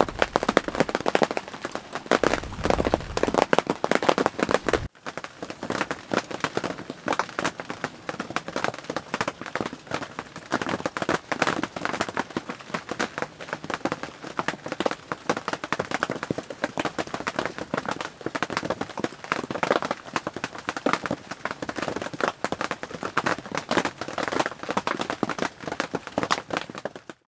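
Rain pattering on a tent's fabric, heard from inside the tent: a dense patter of drop hits, with a short break about five seconds in.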